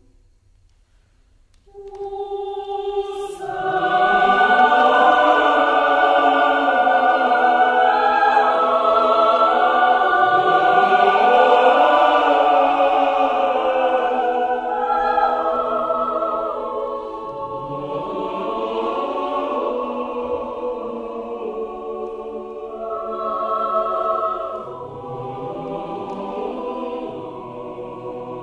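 Choir singing sustained chords. After a near-silent pause of about two seconds, the voices enter and swell to a loud, full sound, then sing on more softly, with another swell near the end.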